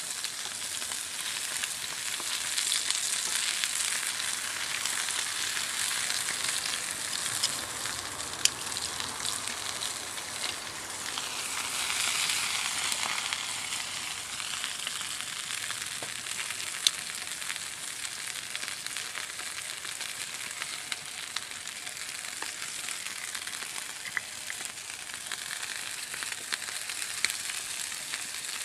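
Whitefish and frog legs frying in a thin skillet over a campfire: a steady sizzling hiss with a few sharp pops.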